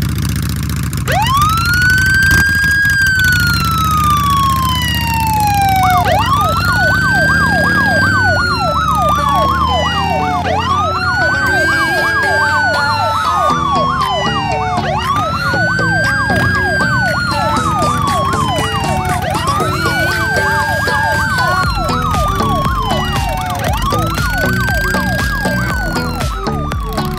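Police vehicle sirens. One wails in a slow rise and a long fall, repeating about every four and a half seconds, while a second yelps rapidly up and down through the middle stretch. A steady low engine rumble runs underneath.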